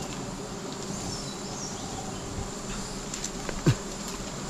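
Swarm of giant honey bees (Apis dorsata) buzzing in a steady drone around their nest. About three and a half seconds in, a brief louder sound drops quickly in pitch.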